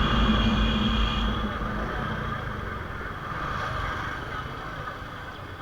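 Engine and road-traffic noise on a motorcycle ride. A loud vehicle sound with steady tones fades away over the first second or so, leaving a steadier engine-and-road din.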